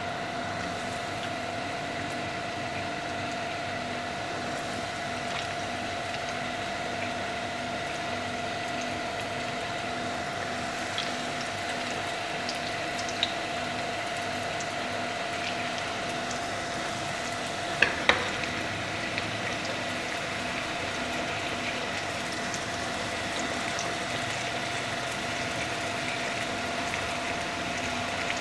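Crumb-coated chicken pieces sizzling steadily as they fry in a pan of hot oil, with a steady hum underneath. Two sharp knocks come close together about eighteen seconds in.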